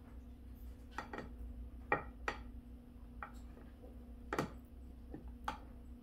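A spatula knocking and scraping against a stainless steel mixing bowl and a glass baking dish as pudding is scooped and spread. The knocks are short and irregular, about eight in all, and the loudest comes about four and a half seconds in.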